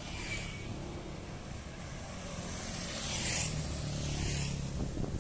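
Road traffic: motor vehicles passing on the road, swelling to their loudest about three seconds in and again shortly before the end, over a steady low rumble.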